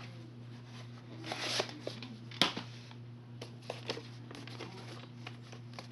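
VHS tape cases being handled as a tape is taken off a stack: rustling with scattered clicks and knocks, the sharpest about two and a half seconds in.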